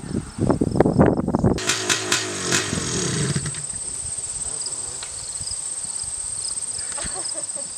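Insects trilling steadily at a high pitch, as crickets do in a grass field. Near the start there is a brief stretch of voices. A short low rumble with a few clicks fades out in the first seconds after that.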